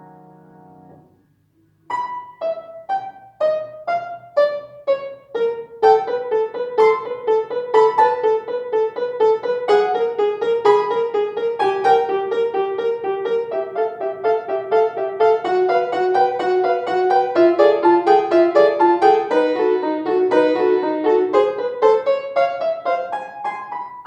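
Solo piano playing a piece: a held chord dies away, and after a short pause single notes begin one at a time about two seconds in. From about five seconds in they become a steady stream of quick notes in the middle register.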